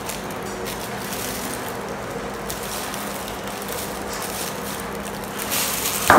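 Knife shaving slices off a soft ball of cooked mung bean paste onto a plate of sticky rice: faint scraping over a steady background hum. A single sharp knock near the end.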